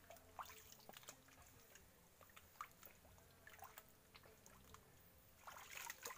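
Faint scattered wet clicks and small splashes of hands digging through mud and shallow water for clams, with a louder slosh near the end.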